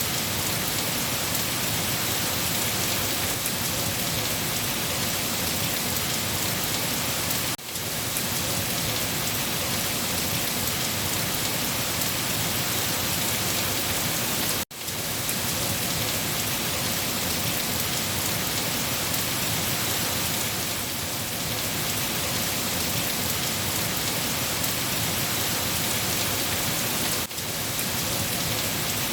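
Steady rain falling, a dense even hiss of drops. The sound cuts out for an instant three times: about a quarter of the way in, halfway, and near the end.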